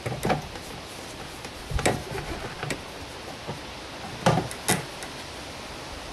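Plastic rear light cluster of a Peugeot 307 SW being pressed and seated into its opening in the car body: a few sharp clicks and knocks, the loudest about four seconds in.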